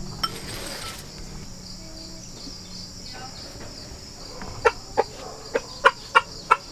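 Rooster giving a run of short, clipped clucks, a few a second, starting about four and a half seconds in. This is the tidbitting food call, which the owner takes for the rooster telling hens there is good food here. A steady high insect drone runs underneath.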